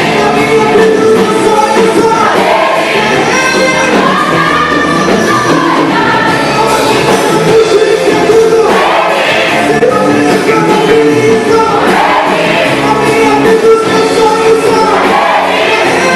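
Gospel choir singing a song in full voice, with many voices holding long notes over musical accompaniment.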